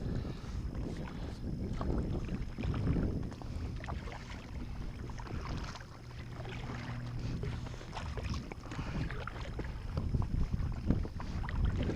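Wind buffeting the microphone out on open water, a rumble that rises and falls, with scattered light clicks and knocks.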